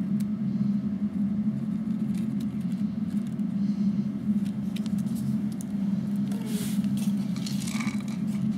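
Steady low machine hum, with faint ticks of a few brown rice kernels dropping into a metal pan of rice. About six seconds in, the rice starts to slide and hiss across the metal pan as it is tipped toward its spout.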